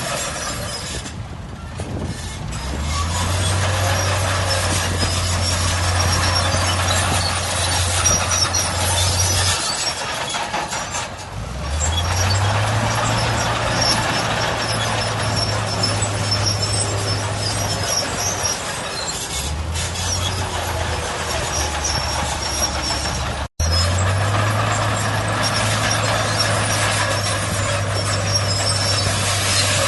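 Heavy diesel engine of earthmoving machinery working under load, revving up, holding, dropping back and rising again about four times, with a steady rattle and hiss over it. The sound cuts out for an instant about two-thirds of the way through.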